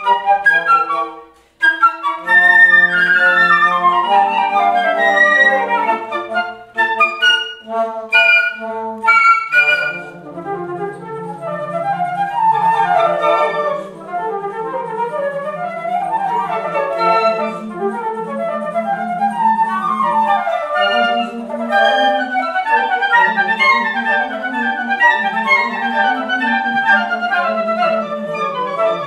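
Flute quartet, four flutes playing classical chamber music together. After a brief break about a second in come short detached chords, then quick runs rising and falling over held lower notes.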